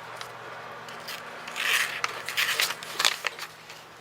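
Folding knife blade slicing through sheets of computer paper: a few short papery rasps and rustles as the edge is tested for sharpness out of the box. A faint steady hum runs underneath.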